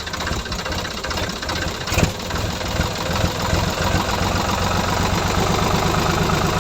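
Mini tractor's small engine running steadily with a fast, rattly knocking beat, a sharp click about two seconds in.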